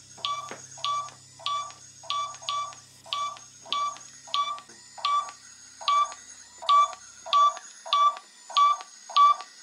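Smartphone ghost-detector app beeping through the phone's speaker, short beeps about three every two seconds that get louder in the second half. The beeps signal the app's paranormal-activity reading.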